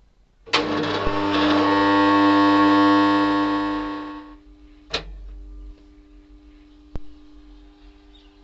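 Motor starter contactor pulling in with a click and buzzing loudly for about four seconds, then clicking again and leaving a fainter steady hum. It is an abnormal, harsh starter buzz, which the owner puts down to rust and carbon on the contactor plates, coil and magnet.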